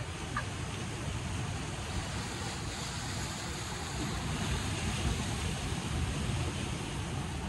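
Sea surf washing over shore rocks, a steady rushing noise, with wind rumbling on the microphone.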